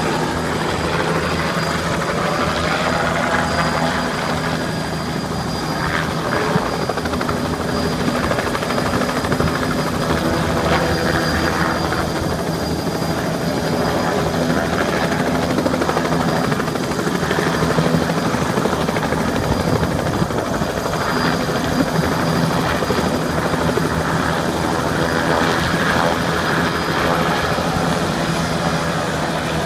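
Light helicopter coming down to land, its engine and rotor running: a steady low drone with a steady high whine above it.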